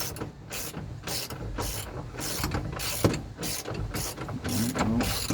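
Hand ratchet wrench clicking in repeated strokes, about two a second, as a nut is cranked down onto its bolt.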